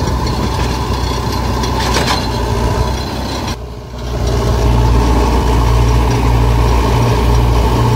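Heavy diesel engine running steadily with a low hum; the sound drops away briefly about three and a half seconds in, then comes back louder.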